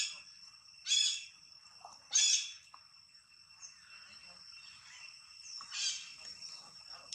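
Monkey giving short, high-pitched cries: three in quick succession at the start and one more near the end. A steady high whine runs underneath.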